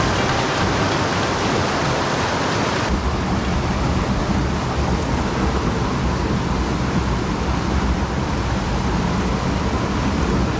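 Background music ends abruptly about three seconds in. The rest is the steady rushing of a mountain stream, with a heavy low rumble.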